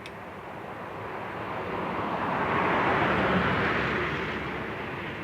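A vehicle passing by: a rushing noise that swells to a peak about three seconds in, then fades away.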